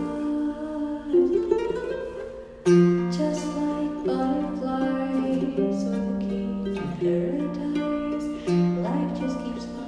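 A plucked string instrument playing a song: chords struck several times, each ringing on with melody notes picked in between.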